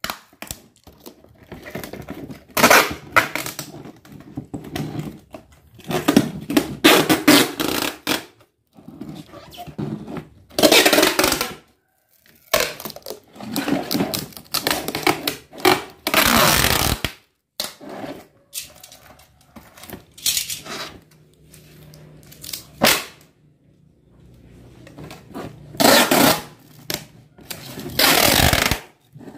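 Clear packing tape pulled off the roll again and again and pressed down over a paper label on a plastic crate, with rubbing and handling noise from the crate between pulls.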